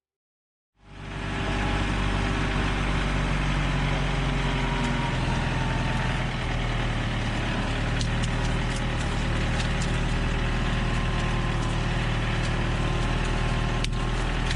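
Tractor engine running steadily, coming in about a second in, with a few sharp clicks and a crack near the end.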